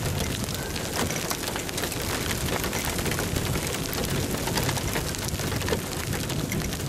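Heavy rain from a hailstorm pouring down: a steady hiss dense with sharp taps of drops striking hard surfaces.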